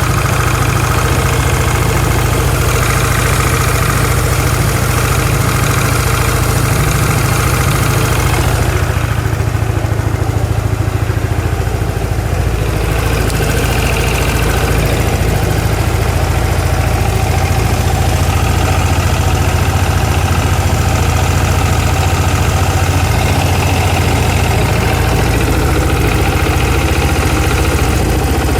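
Yamaha Cygnus X (fourth generation) scooter's single-cylinder engine running steadily at idle, carrying the abnormal noise the owner wants to show. The higher hiss above the engine drops away for a few seconds about nine seconds in.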